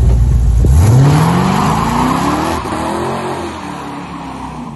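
Car engine revving hard as the car accelerates away, its note climbing steadily for about three seconds, then growing fainter as it moves off.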